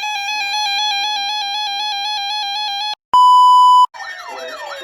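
Electronic emergency alert tones: a warbling, wavering tone for about three seconds, then a short, loud, steady beep, then wailing siren tones sweeping up and down starting about four seconds in.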